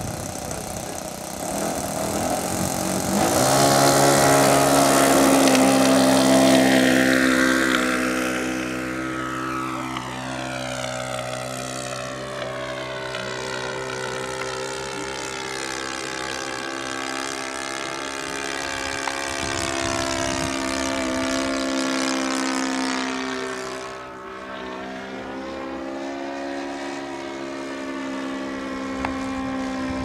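Seagull Models Bücker Jungmeister radio-controlled model biplane's motor and propeller throttling up about two seconds in for the takeoff and running loud for a few seconds. It then runs steadily as the plane climbs away and circles, the pitch shifting as it passes by.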